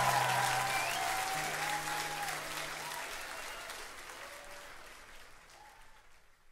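Live concert audience applauding, with a few shouts from the crowd in the first couple of seconds and a low steady tone from the stage that stops about three seconds in; the applause fades out steadily to near silence.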